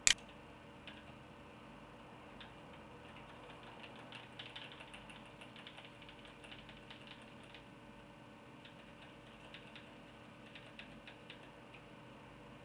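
One sharp click at the very start, then faint, irregular clicking and ticking in loose clusters over a low, steady hum.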